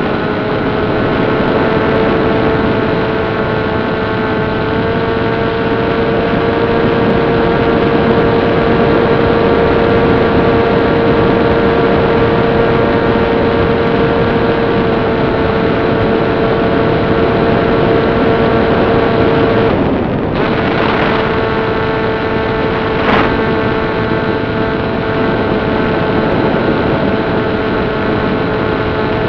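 Turnigy 2822 brushless outboard motor spinning a 7060 two-blade slow-fly propeller at steady cruise throttle: a constant high hum with even overtones over a rush of wind hiss. About twenty seconds in, the sound drops out for half a second, and a brief crackle follows a few seconds later.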